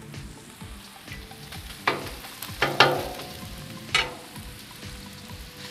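Ground pork sizzling on a Blackstone steel flat-top griddle while a metal spatula chops into it, the blade striking the griddle plate about four times with a brief ring, between two and four seconds in.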